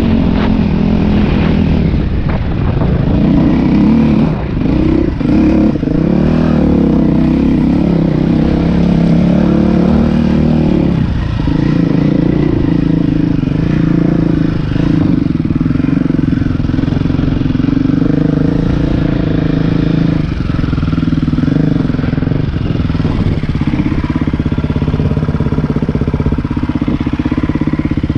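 Dirt bike engine running as it is ridden along a trail, its pitch rising and falling with the throttle, wavering most in the first few seconds and running steadier later on.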